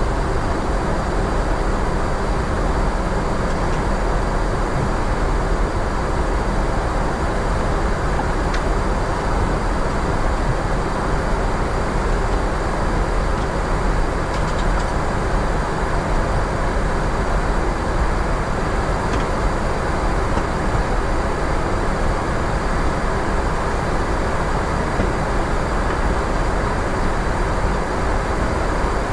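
Steady flight-deck noise of an Airbus A350-900 in flight: an even, unchanging rush of airflow and ventilation with a faint steady hum.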